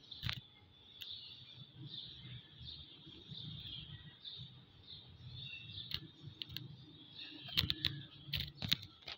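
Birds chirping in the background, a continuous high twittering, over a low outdoor rumble. Several sharp clicks come in the last few seconds and are the loudest sounds.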